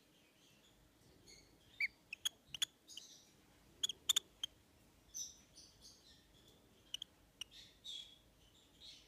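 Peach-faced lovebird chick giving short, faint squeaky chirps and clicks in scattered groups of two or three.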